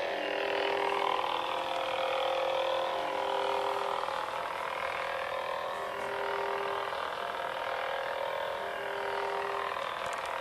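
Prop lightsaber's sound board playing its blade hum through the hilt speaker: a steady electronic hum made of several held tones, with a higher tone swelling in and fading out every couple of seconds.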